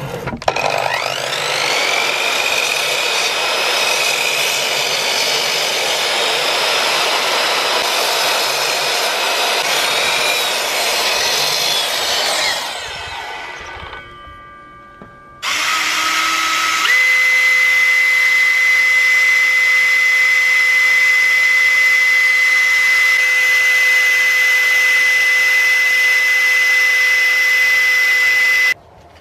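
An electric mitre saw spins up with a rising whine and cuts a slot into a clamped hardwood block, then runs down about thirteen seconds in. After a short pause, a drill starts, steps up to a steady high whine as it bores a hole through the cleaver's steel tang, and cuts off suddenly near the end.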